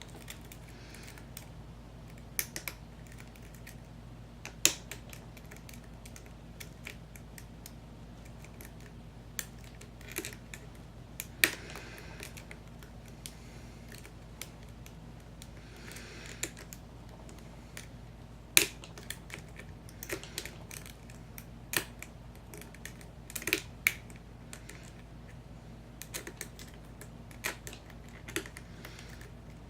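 Irregular small metallic clicks and ticks of a lock pick and tension wrench working the pin stacks inside an American Lock 5100 series padlock, a few louder clicks standing out among the light tapping.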